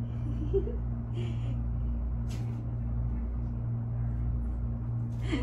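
A steady low hum, with a few short, faint hissy sounds about one and two and a half seconds in.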